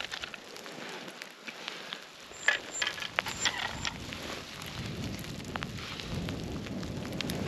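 Crackling, crunching snow and slush and scattered clicks as hands work in an ice-fishing hole, with a denser patch of crackling about two and a half seconds in and a low rumble in the second half.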